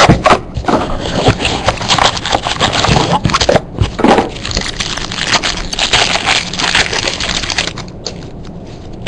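Trading-card packaging being torn open and the cards handled: a dense run of crinkling, tearing and scraping that dies down about a second before the end.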